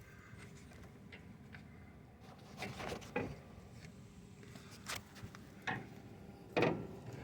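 A handful of short knocks and clatters of front suspension parts, the sway bar and its links, being worked by hand. The loudest comes near the end.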